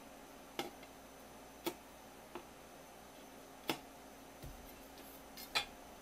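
Knife blade tapping on a wooden cutting board while cutting a small green citrus into wedges: about five sharp clicks spaced unevenly, the loudest near the end, with one soft low thump past the middle.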